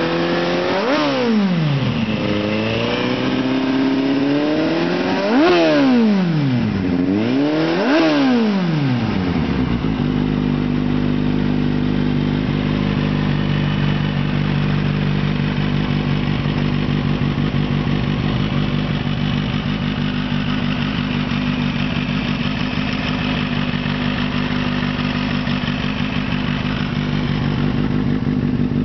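Kawasaki Z800 inline-four engine through an Akrapovic carbon-fibre slip-on exhaust, revved in about three short blips that rise and fall. From about ten seconds in it settles to a steady idle.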